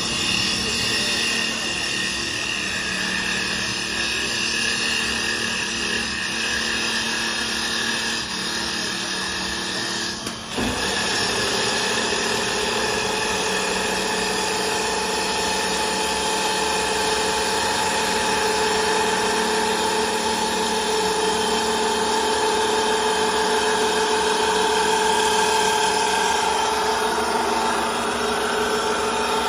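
Wood CNC turning lathe working a spinning wooden blank: its motors run with a steady whine over the noise of the wood being cut and sanded. There is a brief dip about ten seconds in, after which a higher whine grows stronger.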